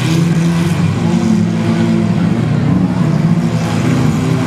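Several compact-car demolition derby engines running and revving together, their pitch rising and falling.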